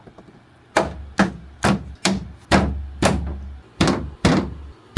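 Repeated knocks on a wooden interior wall panel, about nine blows roughly two a second, as it is knocked home onto its poppet clips.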